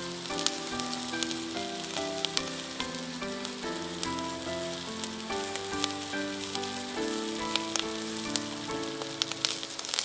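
Spicy cod roe sizzling on a hot, thick mini iron griddle plate over a gas burner, with frequent small crackles. A simple melody of background music plays over it.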